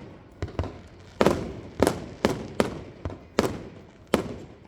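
Fireworks display: aerial shells bursting in an irregular string of about nine sharp bangs, each trailing off in a rolling echo.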